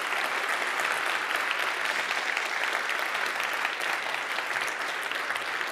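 Audience applauding in a hall, a steady patter of many hands clapping.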